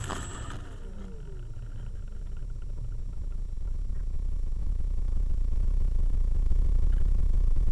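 RC stick plane's motor spinning down with a falling whine in the first second after the hard landing, then a low rumble that grows slowly louder.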